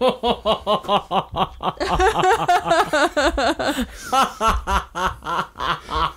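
People laughing hard: a quick run of repeated ha-ha pulses, about five a second.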